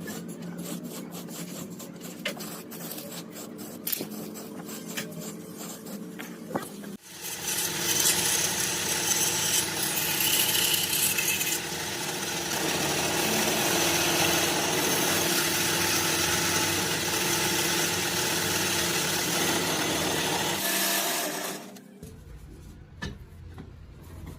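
Tool work: quieter rubbing and scraping with scattered clicks over a low hum, then from about seven seconds in a loud, steady machine noise that stops abruptly near the end.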